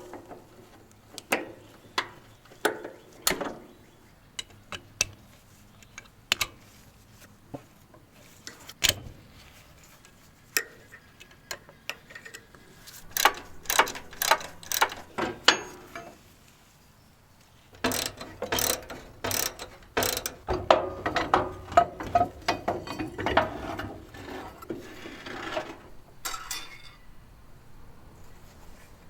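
Metal clicks and clanks of hand tools working on a Cub Cadet garden tractor's drivetrain while the clutch and driveshaft are taken out: scattered single clicks at first, then long runs of quick clicking.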